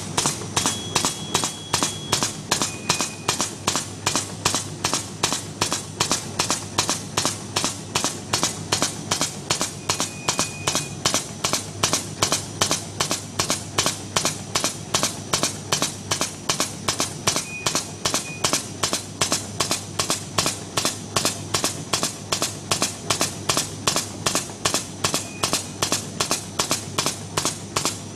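Computer-controlled side-sealing plastic bag machine running, cycling with a steady clack about three times a second as its hot-cutting seal knife strokes over the film.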